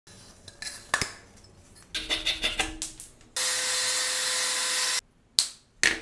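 Clicks and taps from handling a metal soda can, then a steady hiss with a faint hum for about a second and a half that cuts off abruptly. Two sharp knocks follow near the end.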